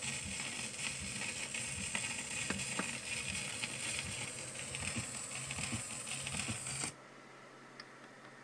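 Surface noise of a home-recorded 78 rpm record playing with no voice on it: steady hiss and crackle with scattered clicks, which cuts off suddenly about seven seconds in, leaving a fainter steady hiss.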